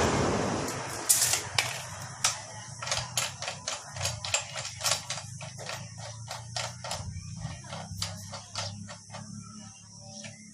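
Light clicks and taps at an irregular pace, about two to three a second, from hand work on the fender parts, over a low steady hum. A hiss fades out in the first second.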